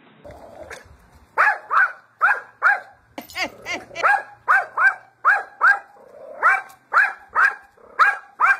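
A small dog barking over and over in short, sharp barks, about two a second, starting about a second in, with a brief pause a little over halfway through.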